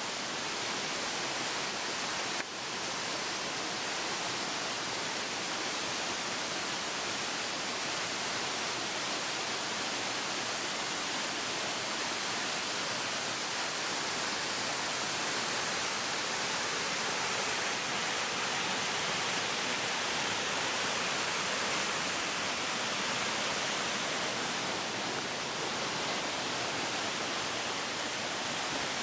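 Waterfall: falling water making a steady, even rushing noise, with one short click about two and a half seconds in.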